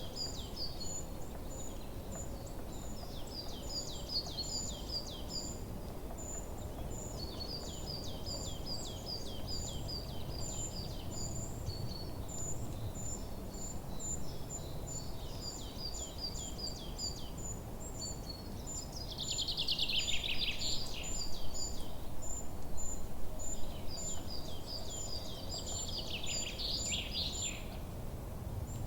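Forest birds calling: repeated runs of quick high chirps, with a thin high note repeating about twice a second throughout. Two louder, denser trills come about two-thirds of the way in and near the end, over a low steady background rumble.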